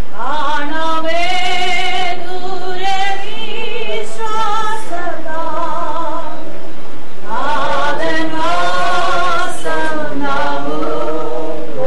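Voices singing a slow funeral hymn together, in two long phrases of held notes with vibrato.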